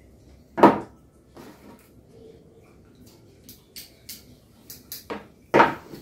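Knocks and clatter of tools, clamps and cable being handled on a wooden workbench, with two loud thuds, one about half a second in and one near the end, and lighter clicks between them.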